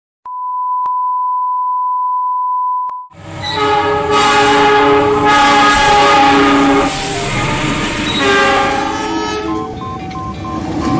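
A steady beep tone lasting about three seconds. Then a diesel locomotive's air horn sounds a long chord blast that changes pitch and level about four seconds in, with a second blast shortly after, over the rumble of a passing train.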